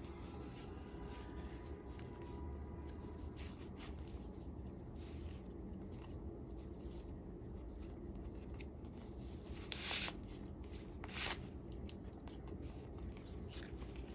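Stitching thread being drawn through leather while a shoe welt is hand-stitched to the insole: faint rubbing and scratching, with two louder swishes of thread pulled tight about ten and eleven seconds in.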